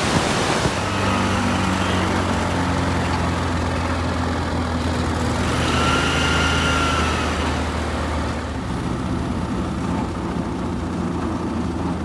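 Vermeer wood chipper's engine running steadily with a low hum; it drops a little in level about eight seconds in.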